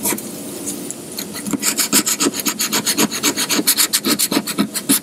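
Sandpaper rubbed by hand over a car door panel in quick back-and-forth strokes, scrubbing the last spot of paint out of the centre of a dent. A softer rasp for the first second and a half, then steady strokes several times a second.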